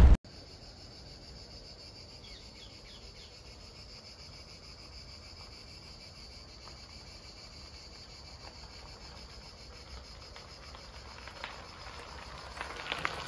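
Steady, high-pitched chorus of insects singing, with a few faint clicks near the end.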